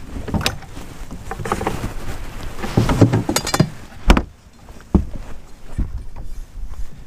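Knocks and clunks of handling on a fiberglass bass boat, with one hard thump about four seconds in as the carpeted livewell hatch is shut. A steady low rumble runs underneath.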